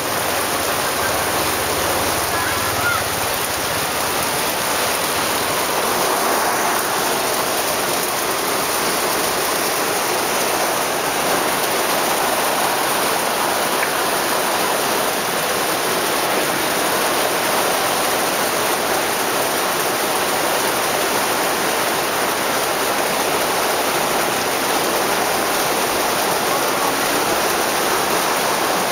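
Heavy rain pouring down steadily onto a wet street, a dense even hiss that holds without a break.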